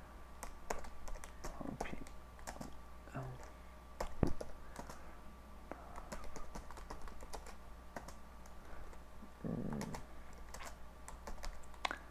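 Computer keyboard typing: irregular keystrokes as code is entered, one landing harder about four seconds in, over a steady low hum.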